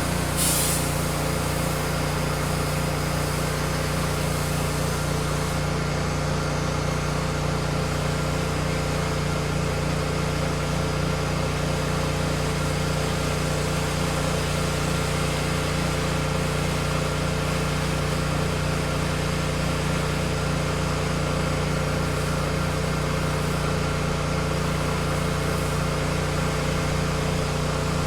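Pressure washer's Honda iGX800 V-twin petrol engine running steadily at constant speed, with a short hiss about half a second in.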